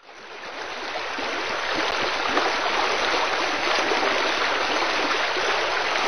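Waterfall rushing steadily at high flow, swollen by recent rains; the sound fades in over about the first second.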